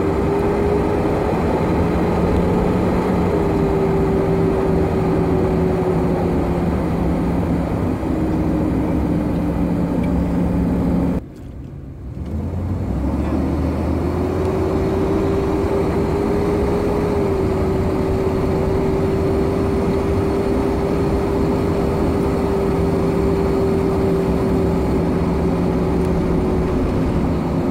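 Van engine and road noise heard from inside the cab while driving, with a whining tone that rises and falls in pitch. This is the laboured engine noise that comes with the van's low power when accelerating below about 30 mph, a fault that is not yet diagnosed. The sound drops out for about a second partway through.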